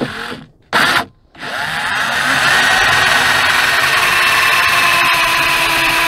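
Black+Decker cordless drill making a shallow pilot hole, a centre point for a self-tapping screw: two short blips of the trigger, then about a second and a half in it spins up, its whine rising over about a second, and runs steadily to the end.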